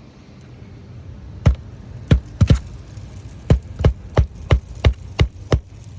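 Hand hammer nailing an asphalt shingle down to the roof deck: about a dozen sharp strikes, a few scattered at first, then a steady run of about three a second.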